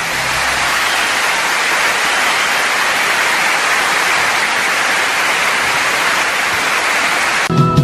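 Loud, steady hiss of static-like noise, with no tune or rhythm in it; music cuts in abruptly near the end.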